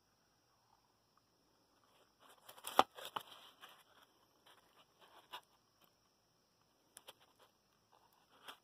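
Fingers pushing and rubbing at styrofoam insulation and the aluminium base plate of a low-temperature-difference Stirling engine, making faint scattered scrapes and clicks; the loudest is a sharp click about three seconds in. The hand is testing whether the engine has frozen fast to the ice beneath it.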